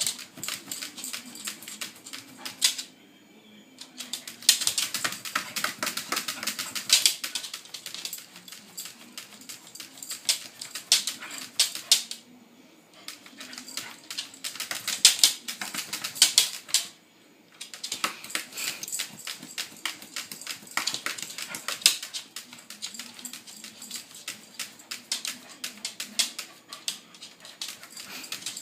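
Cockapoo's claws rapidly clicking and scratching on the hard surfaces around a fridge as he paws and bounces at his reflection, with faint whining underneath. The clatter stops briefly three times.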